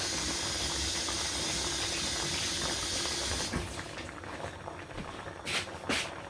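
Steady watery hiss of liquid for about three and a half seconds that cuts off abruptly, then a few light clicks.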